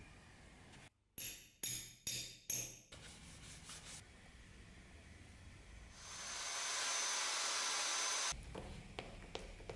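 Leather sheath edge pressed against a wooden edge burnisher spun by a vise-clamped drill: a steady rushing rub with a faint high whine, lasting about two seconds and cutting off suddenly. Before it come four short rough rubbing strokes about half a second apart.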